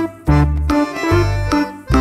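Instrumental background music with a bass line of short, separate low notes, about two a second, under a melody.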